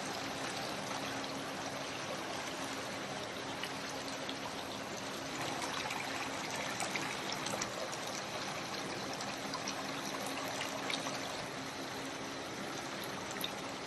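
Decorative water fountain running: water trickling and splashing steadily, with a faint steady hum underneath.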